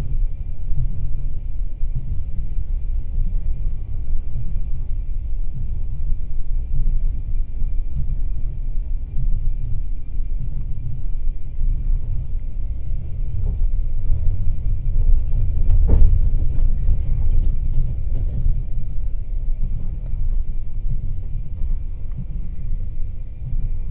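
Passenger train carriage running along the track, heard from inside the open-plan sleeper carriage: a steady low rumble of wheels on rails, with a single sharp knock about sixteen seconds in.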